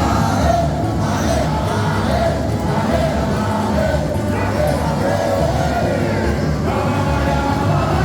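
Samba played loud over a stadium sound system: a lead singer's voice over a samba bateria's steady drumming, with the crowd in the stands singing along.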